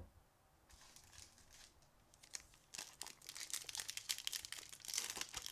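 Trading-card pack wrapper crinkling and tearing as it is opened: a rapid run of fine crackles, sparse at first and denser from about halfway through.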